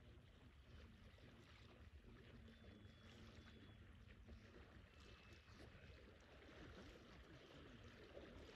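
Near silence: faint outdoor ambience with a low rumble, and two brief faint high whistles, a few seconds in and about halfway through.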